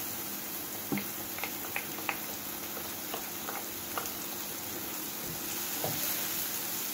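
Butter sizzling steadily in a frying pan with garlic, scallion and onion, while a wooden spoon stirs, knocking and scraping against the pan now and then.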